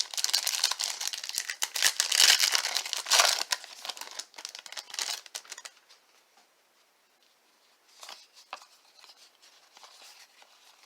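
A trading-card pack's wrapper being torn open and crinkled: dense crackling for about the first five and a half seconds, then only a few faint rustles.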